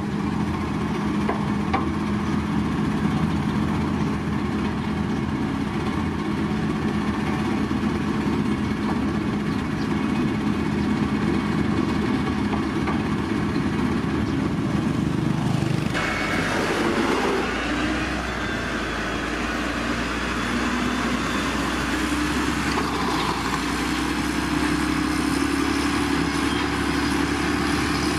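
Diesel engines of heavy road-building machinery running steadily. A little past halfway the engine sound changes suddenly to a different, lower note.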